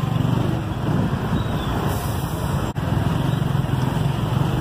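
Market ambience dominated by a steady low rumble like passing traffic, with a brief dropout about two and a half seconds in.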